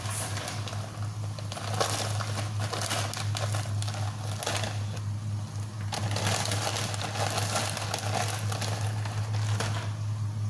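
Irregular rustling and crinkling that swells and fades, over a steady low hum.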